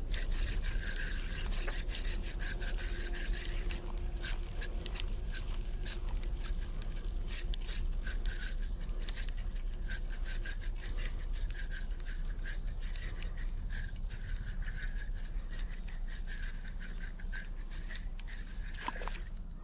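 Pond-side insects with a steady high drone and frogs calling every second or two, over low wind rumble, with faint clicking of a spinning reel being slowly cranked.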